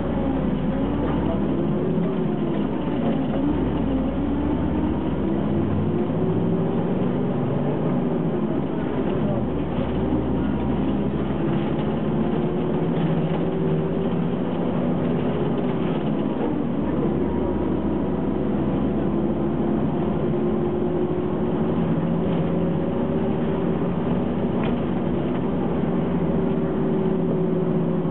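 Diesel engine of an Ikarus 280 city bus heard from on board while driving. Its pitch rises and falls several times as the bus accelerates through its gears and slows again.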